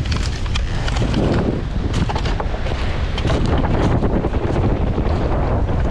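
Strong wind buffeting the microphone, with irregular clicks and clatters of beach pebbles and driftwood being moved.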